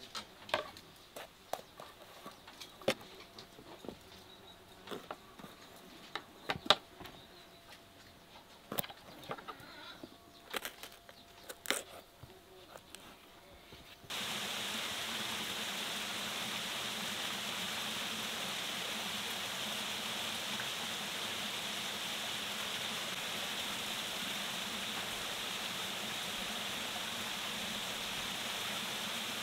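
Vegetables being pushed onto a long metal skewer, with scattered crisp clicks and taps. About halfway through there is an abrupt change to the steady rush of flowing water over rocks.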